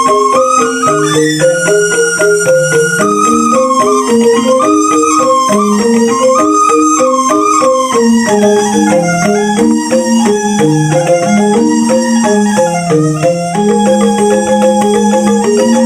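Balinese rindik, a bamboo xylophone, played in quick interlocking mallet patterns, with a held, stepping flute-like melody line above it.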